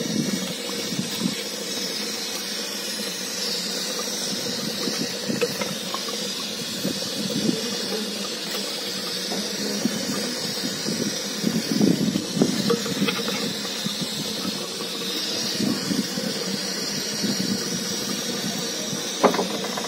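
Steady hiss of steam from a clay handi of mutton curry, freshly unsealed after 40 minutes' cooking and still steaming hot, with a steel ladle stirring and scraping through the thick gravy, busiest about midway, and a sharp click near the end.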